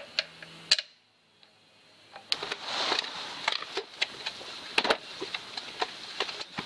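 Scattered small metallic clicks and clinks from parts being handled by hand on a dismantled stationary engine. There is a short, almost silent gap about a second in, and a sharper knock near five seconds.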